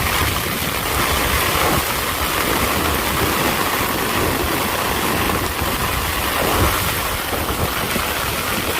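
Heavy rain pouring down with gusting wind, a loud steady rushing with an uneven low rumble beneath it.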